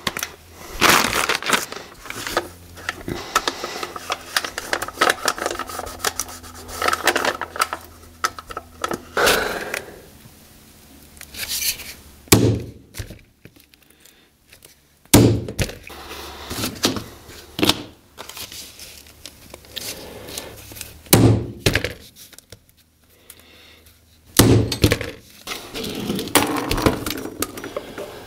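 Tin snips cutting and crinkling Fel-Pro Fel-Ramic metal-core exhaust gasket sheet, then a series of sharp ball-peen hammer blows on a punch, knocking bolt holes through the gasket on a cardboard-covered bench.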